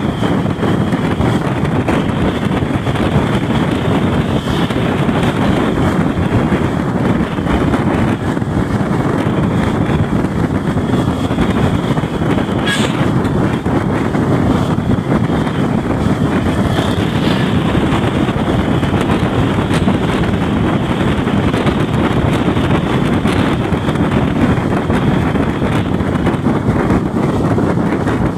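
Steady rush of wind and road noise inside a moving non-air-conditioned ordinary bus, the bus running at speed along the highway.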